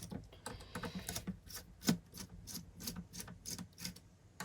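Hand screwdriver undoing small screws on a laptop motherboard: a string of light, irregular clicks and ticks of the driver tip and screws, a few each second.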